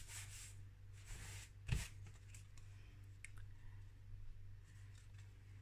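Hands rubbing a freshly glued sheet of patterned paper flat onto a card base: faint paper swishes, a soft knock a little under two seconds in, then a few light clicks, over a low steady hum.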